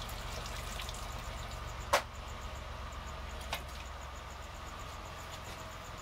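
A steel ladle knocks sharply against a large aluminium cooking pot about two seconds in, with a short metallic ring, and a fainter knock follows about a second and a half later, over a steady low hum.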